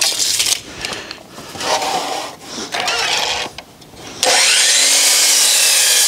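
Scrapes and knocks as a 2x6 board is measured and marked, then about four seconds in a DeWalt 12-inch sliding miter saw starts up with a rising motor whine and cuts through the board.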